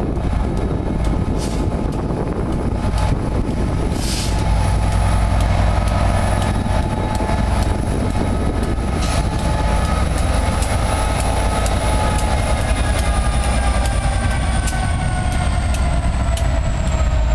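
Class 67 diesel locomotive passing slowly at close range, its two-stroke V12 engine giving a heavy low rumble. Its whine drops in pitch as it goes by, and the wheels give sharp clicks on the track now and then.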